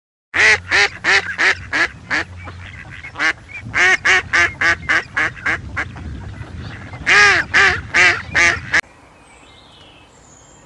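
Mallard ducks quacking in quick runs of loud quacks, about three to four a second, in three bouts with short gaps. The quacking cuts off suddenly near the end, leaving faint birdsong.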